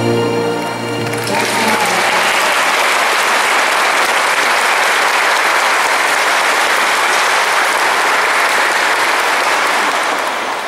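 Waltz music ending in the first two seconds as an audience breaks into steady applause, which starts to die away near the end.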